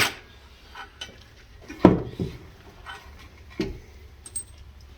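A few scattered knocks and clanks of hand tools and metal parts, the loudest just under two seconds in, with a couple more through the middle.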